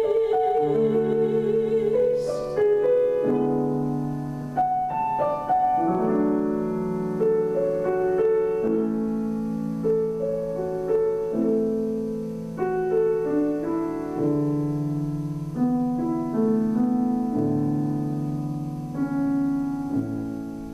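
A soprano's last held note, sung with vibrato, ends about two seconds in. A grand piano then plays the song's postlude alone, its last chords sounding near the end.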